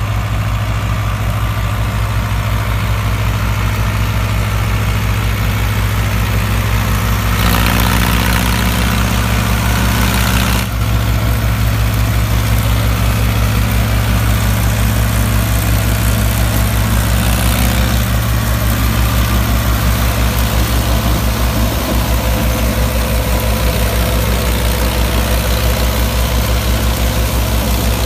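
Mahindra Arjun 555 DI tractor's four-cylinder diesel engine running steadily under load, driving a straw reaper (tuddi machine) that is chopping wheat stubble into straw. About seven seconds in the sound grows louder and hissier for some three seconds, then settles back.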